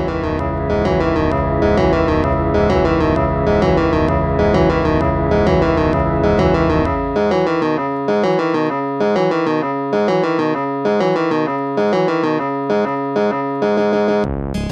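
Background music: a keyboard tune of evenly repeated chords, about two a second, with the bass dropping out about halfway.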